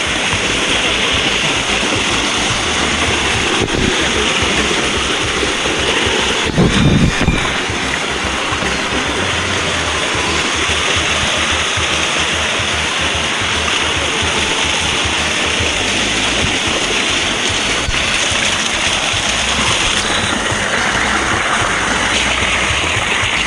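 Waterfall pouring, a steady rush of water, under background music. A short loud thud about seven seconds in.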